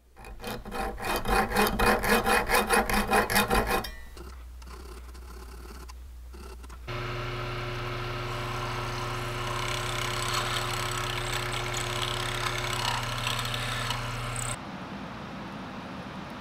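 Rhythmic rasping strokes of a hand file or rasp on a workpiece, about five a second, for roughly the first four seconds. Then, after a quieter moment, a steady machine hum with a low tone runs until it cuts off shortly before the end.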